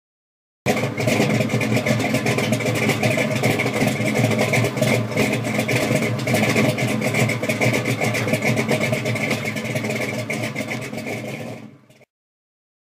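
A car engine running loudly and steadily, starting abruptly and fading out near the end.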